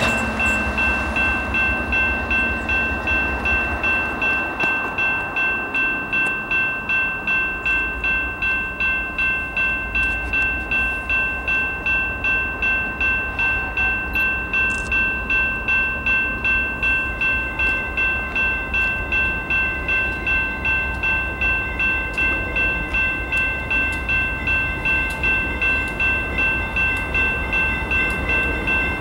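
General Signals Type-2 electronic crossing bell ringing steadily at about two strikes a second, each strike an electronic ding over a low rumble. It marks an activated level crossing warning of an approaching train.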